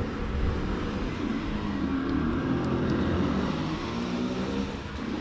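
A motor vehicle's engine running close by, steady with a slight rise and fall in pitch, over a low rumble.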